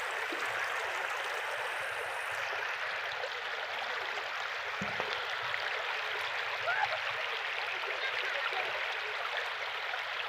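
Shallow river water flowing steadily, an even rushing sound of current rippling over a stony bed.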